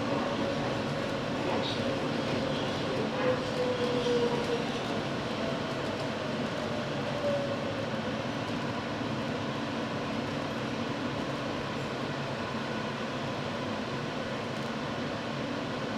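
New York City subway L train running, a steady rumble and rattle with a thin whine that drops slightly in pitch over the first few seconds.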